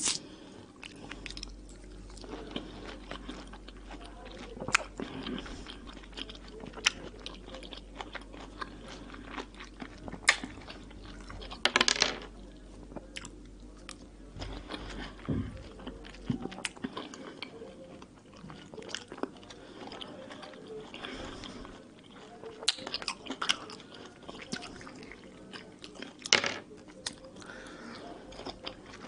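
Peeled tangerine segments being pulled apart by hand and eaten: wet bites and chewing with scattered sharp clicks, the loudest about twelve seconds in and again near the end.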